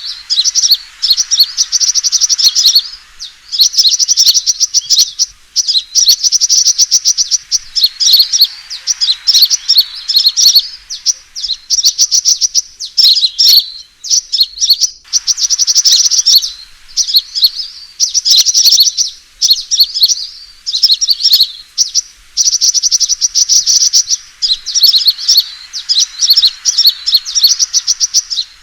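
Sunbirds' fighting calls used as a lure: rapid, high-pitched twittering and chattering phrases of one to three seconds each, separated by short breaks.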